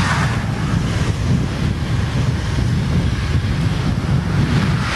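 Wind buffeting the camera microphone, a steady low rumble with short gusty swells near the start.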